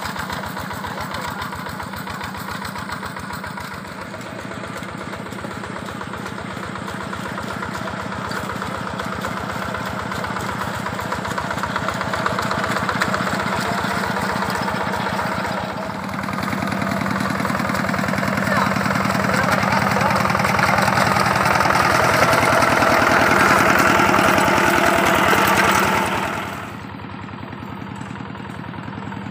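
Two-wheel hand tractor's single-cylinder diesel engine running steadily under load as it ploughs a wet rice paddy, growing louder through the middle and dropping suddenly to a quieter level near the end.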